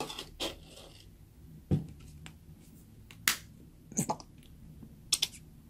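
A handful of separate sharp plastic clicks and taps as a clear plastic cup is set on a wooden table and a plastic shampoo bottle with a snap cap is handled over it.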